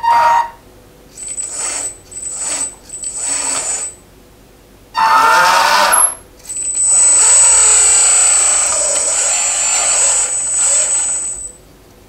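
Motors and hydraulic pump of a 1:14 scale RC hydraulic skid steer loader whining in three short bursts and then a louder one as it drives, followed by a steady high whine of about five seconds as the hydraulic pump raises the loader arms and bucket.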